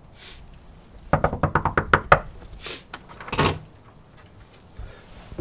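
A rapid run of about ten knocks on a door in roughly one second, followed by two short breathy rushes of noise.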